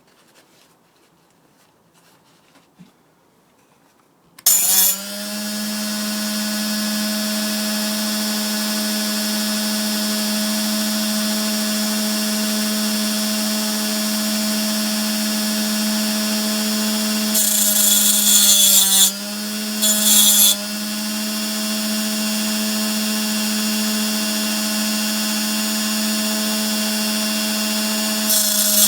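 Dremel rotary tool fitted with a 2-inch diamond-coated disc, switched on about four seconds in and running at a steady high whine. Twice later, and again right at the end, a loud, harsh grinding hiss as the disc is touched to the tops of a circular saw blade's teeth, the motor's pitch dipping briefly under the load.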